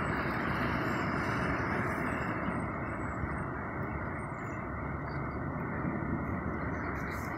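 Steady rushing noise of wind on the microphone and choppy sea water around a kayak.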